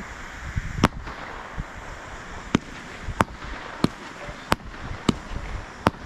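Fireworks display: a run of about seven sharp bangs, spaced roughly half a second to a second apart, over a steady hiss.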